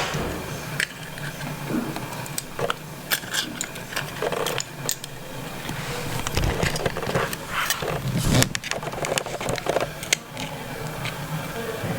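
Small tools clicking, tapping and scraping against an iPhone 5's internal parts as a component is pried and lifted out, in irregular short clicks over a steady low hum.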